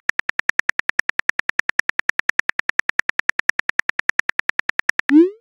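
Keyboard click sounds from a texting-story app as a message is typed out: even, identical ticks at about ten a second. Near the end they stop and a short rising tone sounds as the message is sent.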